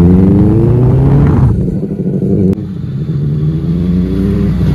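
Benelli TNT 600i's four-cylinder engine with a modified exhaust, accelerating hard: it climbs in pitch for about a second and a half and drops off. It then climbs again.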